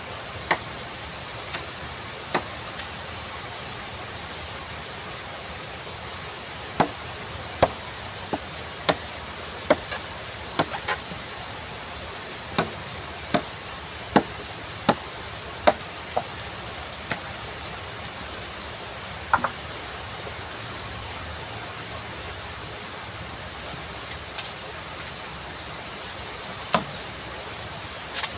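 Machete chopping into a dry bamboo pole: sharp knocks, a few at the start and a run of roughly one a second through the middle, over a steady high insect drone.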